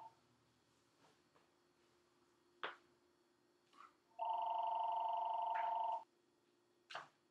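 Telephone ringing with an electronic warbling ring: one ring of about two seconds starting about four seconds in, the last moment of a previous ring at the very start. Two short knocks, one before the ring and one just after it.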